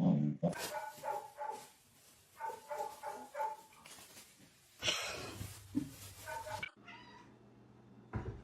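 Cat meowing: runs of short, high mews in quick succession, with a louder noisy burst about halfway through.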